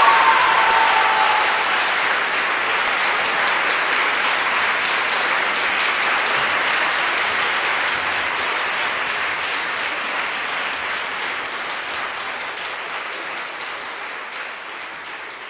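Concert audience applauding, loudest at the start and slowly dying down.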